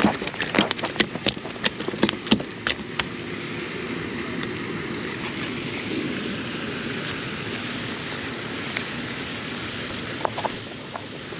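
A quick run of sharp clicks and ticks over the first few seconds, then a steady rushing noise, like wind on the microphone, with a few more clicks near the end.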